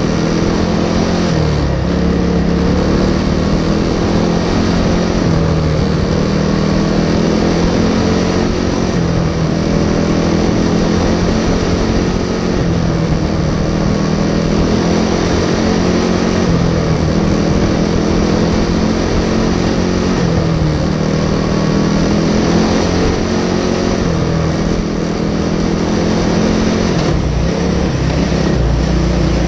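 Racing kart's single-cylinder four-stroke Briggs & Stratton Animal engine heard on board, running hard with its revs rising and dropping again and again.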